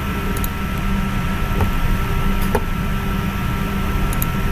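Steady machine hum and hiss of room equipment, heaviest in the low range, with a thin steady whine above it and a few light clicks scattered through.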